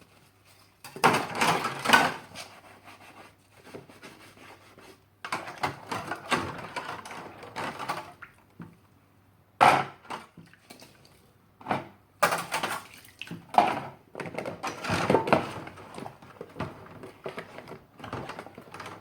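Dishes being washed by hand: plates and cutlery clattering and knocking at irregular intervals, with a few sharper knocks about ten and twelve seconds in.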